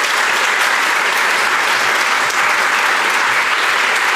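A large audience applauding, a dense, steady clapping.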